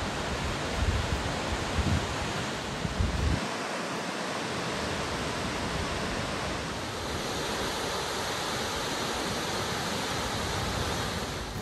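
Kepler Cascades waterfall on the Firehole River rushing in a steady, dense roar of falling water. For about the first three seconds, low thumps of wind buffet the microphone.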